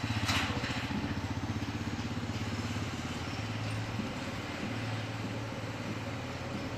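Royal Enfield Himalayan motorcycle's single-cylinder engine running steadily at low revs.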